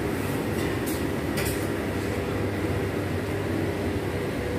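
Steady low machinery hum and rumble of an indoor room, with a couple of light clicks about a second in.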